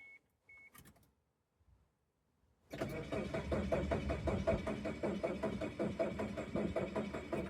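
2000 Chevy Tracker engine cranking on the starter for about five seconds without catching, an even rapid chugging that starts about three seconds in. The engine will not fire because the fuel pump is getting no power. Before it, two short electronic chime beeps.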